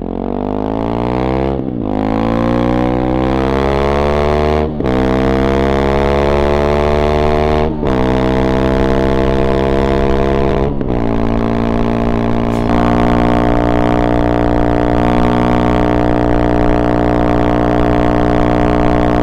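Honda CRF300 single-cylinder engine at full throttle through a Yoshimura RS-4 exhaust, its note rising through the gears with a brief dip at each of four upshifts. For the last third it holds a steady note at about 120 km/h cruise.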